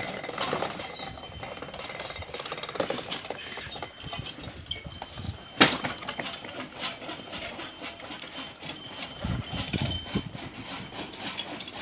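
Bullock-driven iron gear turning under a wooden beam as the bull walks its circle, with scattered irregular clanks and knocks and one sharp knock about halfway through. The gear drives a fodder chopper.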